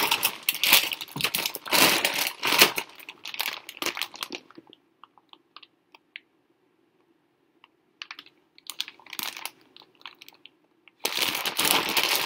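Clear plastic grain spawn bags of rye being handled: the bag plastic crinkles and the grain inside rustles and crunches. The crackling is dense for the first four seconds, drops to a few scattered crinkles over a faint low hum, and comes back dense near the end.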